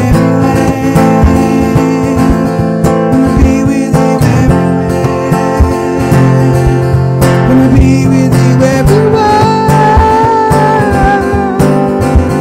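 Strummed acoustic guitar with a man singing, over layered looped parts; about three quarters of the way through he holds one long wavering note.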